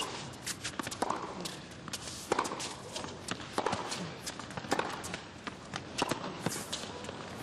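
Tennis rally: rackets striking the ball back and forth, a crisp hit roughly every second and a quarter, with players' footsteps on the court between the hits.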